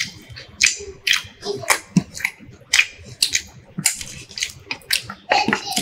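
Close-up eating sounds: wet lip smacks and chewing from people eating rice and curry with their hands, sharp and irregular, two or three a second.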